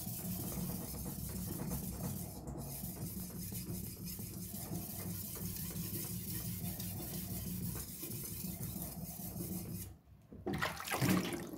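Chinese cleaver's steel blade being ground by hand on a wet whetstone: a steady wet scraping of repeated strokes. It stops about ten seconds in, then a brief, louder scrape follows near the end.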